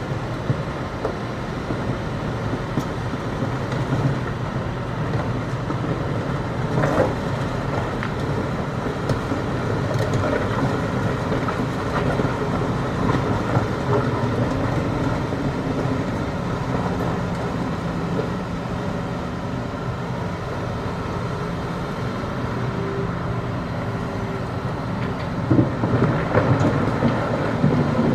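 Hitachi excavator's diesel engine running steadily under load while the bucket digs into hard rock, with scattered clanks and knocks of rock against steel.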